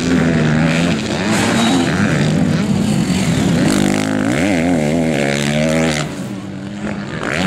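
Motocross dirt-bike engines running hard on the track, the pitch climbing and dropping several times in quick succession about halfway through as the rider works the throttle over the bumps and jumps. The engine sound eases off somewhat near the end.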